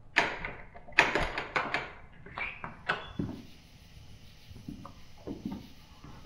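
Front door being unlocked and opened: a quick run of sharp clicks and knocks from the lock and latch over the first three seconds, then a few soft thuds about five seconds in.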